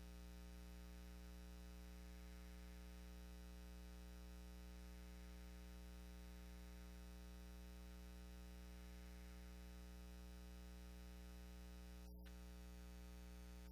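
Near silence: only a steady low hum with a faint hiss.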